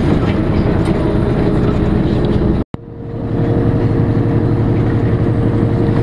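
Inside a moving bus: steady engine and road rumble. About halfway through the sound cuts out for a split second, then the rumble returns with a steady hum.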